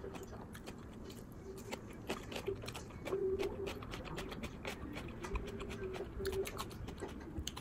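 Eating sounds: wooden chopsticks picking at stir-fried food on a ceramic plate, giving many small irregular clicks and taps. A low steady humming tone comes in briefly about three seconds in and again around six seconds.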